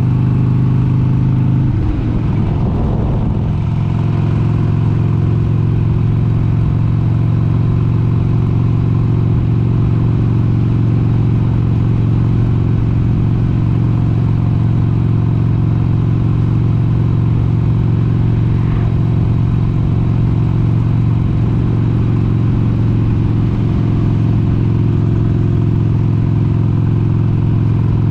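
1996 Harley-Davidson XLH883 Sportster's 883 cc air-cooled V-twin running at road speed under way. About two seconds in, the engine note steps down to a lower pitch; it then holds a steady cruise.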